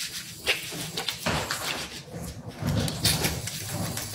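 Irregular knocks, clicks and rustling from a phone being handled and carried while the holder moves about a small, echoing restroom.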